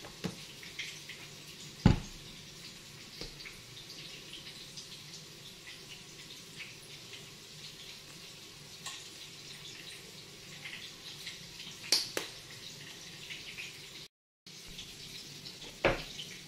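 Tableware handled on a table: a few sharp knocks as a ceramic plate and plastic condiment bottles are set down, the loudest about two seconds in, over a steady faint hiss.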